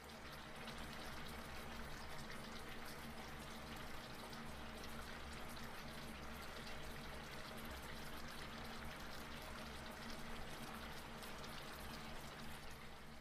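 Ramyeon broth boiling in a frying pan with the noodles, a steady bubbling hiss with fine crackle and a low hum underneath.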